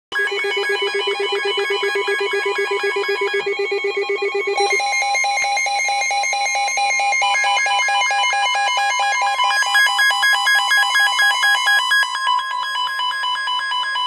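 Midland NOAA weather alert radio, with other alert radios alongside, sounding its alarm for an incoming flash flood warning. Rapid repeating electronic beeps at several pitches overlap, and the pattern changes about five seconds in.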